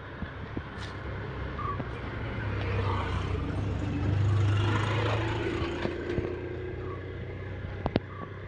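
A motor vehicle passing off-camera: a low engine hum swells to a peak about halfway through and then fades. A sharp click comes near the end.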